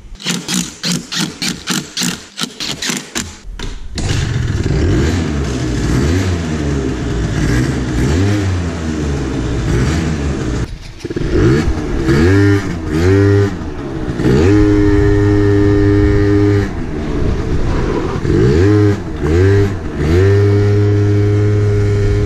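Scooter-type moped engine, just reassembled with its variator and belt, stuttering for about three and a half seconds before it catches. It then runs and revs up and down repeatedly as the moped moves off, holding steady higher revs twice.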